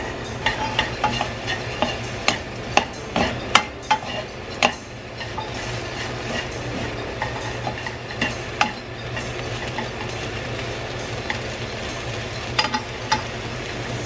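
Long wooden chopsticks stirring and tossing shredded dried filefish and shishito peppers in a soy glaze in a nonstick wok. The chopsticks give sharp taps and clicks against the pan, many in the first few seconds and again near the end, over a steady sizzle. A low steady hum runs underneath.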